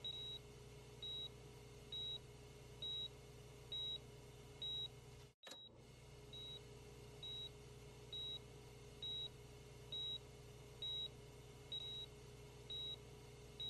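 Hospital patient monitor beeping steadily: short high beeps at one pitch, about one a second, the pulse beep of a heart monitor on an unconscious patient. A steady low electrical hum runs underneath, and the sound drops out briefly about five seconds in.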